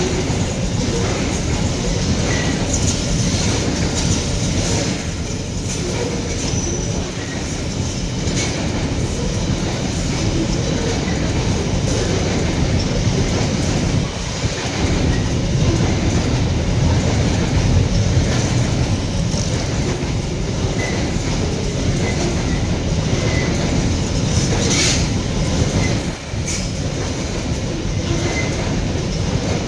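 Babaranjang coal train's open-top coal wagons rolling past at close range: a steady rumble of steel wheels on rail, with irregular clatter as the wheels cross rail joints and a few brief, faint wheel squeals.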